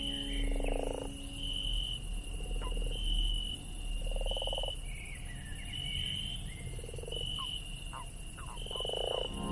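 Frogs croaking: about five low, pulsed croaks a second or two apart, over a short high-pitched chirp that repeats roughly every second and a half.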